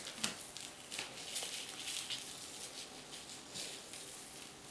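Faint, light pattering and scratchy rustling of kittens' paws scampering over a floor mat, with scattered small ticks.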